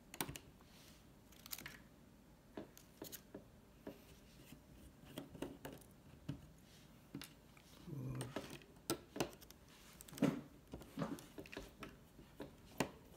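Small clicks, taps and scrapes of fingers and a small screwdriver working on a laptop's metal touchpad bracket and its screws, with a few sharper clicks in the second half.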